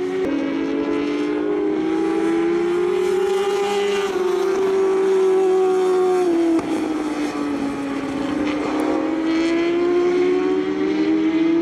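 J-GP2 class racing motorcycle engines at high revs, passing one after another. The engine note slides up and down, with a sudden drop in pitch a little past halfway.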